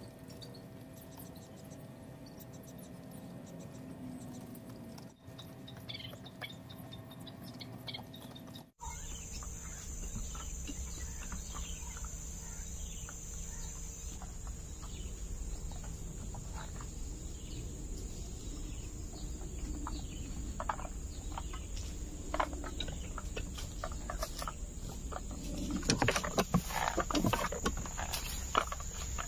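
Outdoor background of a steady high insect drone with scattered bird chirps. Near the end come a cluster of loud rustles and clicks, like footsteps through dry grass and brush.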